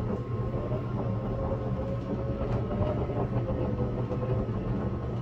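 A steady low mechanical rumble and hum, with a faint whine that wavers slightly in pitch and fades near the end.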